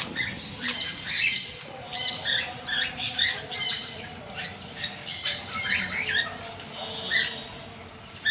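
A group of birds chirping and squawking, many short, sharp calls overlapping in quick clusters.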